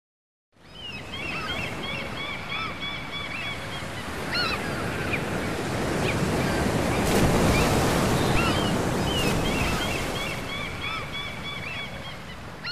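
Sea surf breaking and washing, swelling louder past the middle and easing off, with many gulls crying over it in short, arching calls. It starts about half a second in, after silence.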